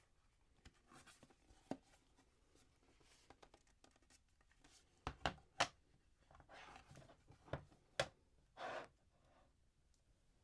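Quiet close-up handling noises: scattered sharp taps and clicks, the loudest a cluster of three about five seconds in, with soft rustling and a short scrape near the end.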